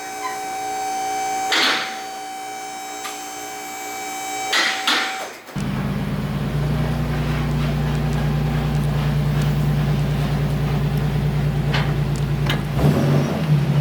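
A car driving, heard from inside the cabin: a steady low engine drone with road noise, starting abruptly about five seconds in. Before that there is a steady high electrical hum with two short rustles.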